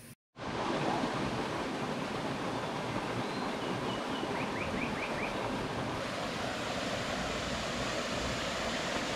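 A creek rushing steadily, a constant even sound of flowing water with no break.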